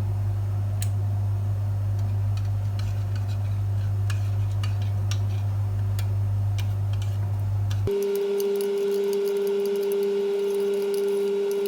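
A steady low machine hum with scattered light clicks and ticks; about eight seconds in it cuts abruptly to a different, higher-pitched steady hum with quick light clicks.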